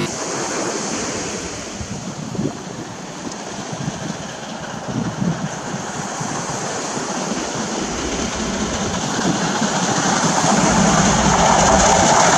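Steady wind and sea surf noise, then an approaching steam locomotive and its train, a low rumble that grows steadily louder over the last few seconds.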